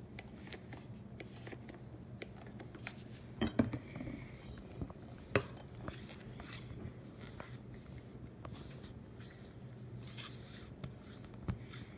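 Silicone spatula scraping and knocking against a stainless steel mixing bowl while stirring cornstarch and conditioner, with scattered clicks and a few sharper knocks, the loudest about three and a half and five and a half seconds in.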